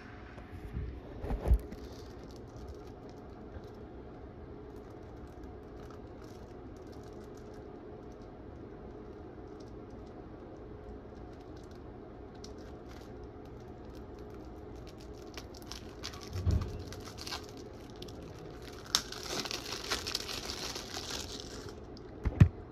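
Packaging being opened by hand: scattered light knocks and a few louder thumps, with a few seconds of crinkling and tearing about three-quarters of the way through.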